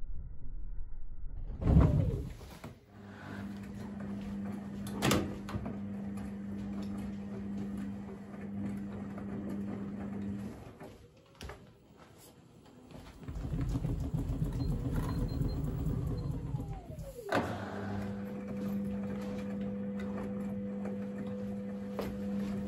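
Washing machine running with a steady motor hum that stops for a couple of seconds about halfway through and then starts again, with a few sharp knocks.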